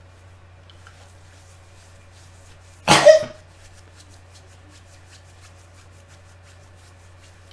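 A person sneezing once, loudly, about three seconds in: a sudden burst of breath lasting about half a second.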